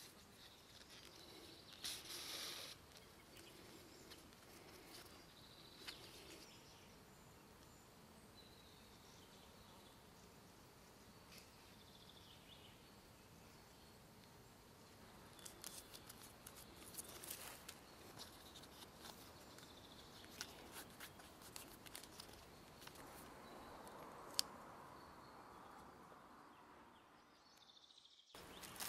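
Very quiet room hiss with faint handling sounds of leather sewing: a brief rasp of waxed linen thread drawn through the belt leather about two seconds in, then scattered small clicks and rustles.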